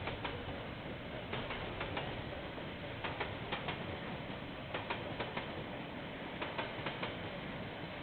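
KiwiRail train running past on the line: a steady rumbling noise scattered with irregular sharp clicks and clacks.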